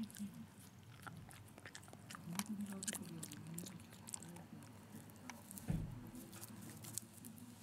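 A Shiba Inu biting and chewing raw fleabane leaves, with a steady run of small wet crunching clicks. There is one soft thump about six seconds in.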